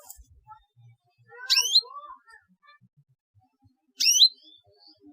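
Canary giving short, sharp 'cuit' chirp calls that sweep upward in pitch, two of them about two and a half seconds apart.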